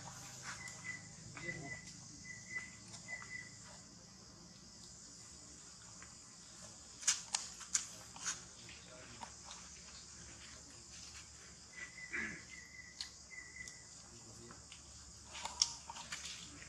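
A steady high-pitched insect drone, with a run of short high chirps in the first few seconds and again about twelve seconds in, and a few sharp clicks around seven to eight seconds and near the end.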